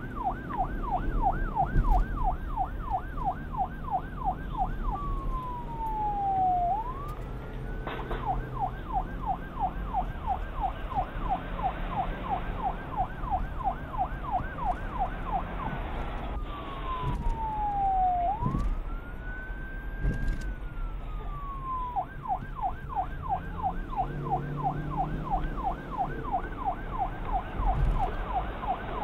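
Police siren cycling between a rapid yelp, about four sweeps a second, and a slow rising-and-falling wail, switching to the wail about five seconds in, again past the middle and near the end.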